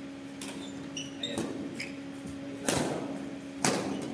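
Badminton rally: rackets hitting the shuttlecock four times, about one hit a second, the last two hits loudest and echoing in the hall. A few short squeaks of shoes on the court come between the first hits, over a steady low hum.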